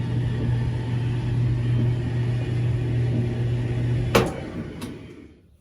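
Whirlpool clothes dryer running with a steady hum and rumble, the noise that the worn idler pulley is making. About four seconds in there is a click and then a second one, and the running sound dies away over a second or so as the drum coasts to a stop.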